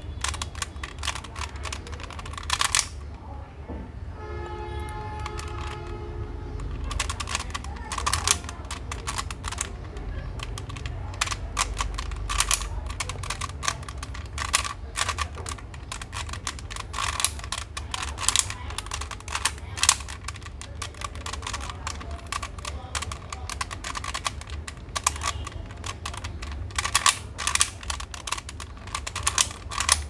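Plastic Latch Cube, a 3x3 twisty puzzle, being turned by hand in quick succession to scramble it: a dense, irregular run of plastic clicks and clacks as the layers are twisted.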